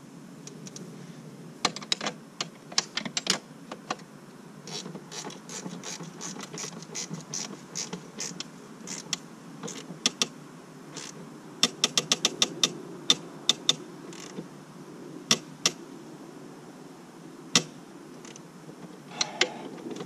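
Socket ratchet clicking in short quick runs as the bottom swingarm bolt of an ATV's chain adjuster is snugged tight, with scattered metal tool clicks between strokes and a short clink near the end.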